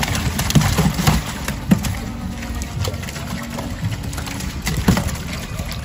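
Largemouth bass flopping in a plastic weigh-in tub with a little water. Their bodies and tails knock against the tub in several sharp slaps and thumps.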